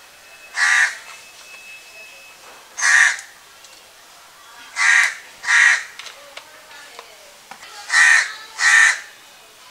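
A crow cawing six times, harsh and loud: single caws about a second and three seconds in, then two quick pairs of caws.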